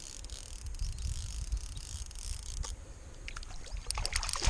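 Water sloshing and splashing close to the microphone over a low wind rumble, with a quick run of small splashes and ticks in the last second and a half.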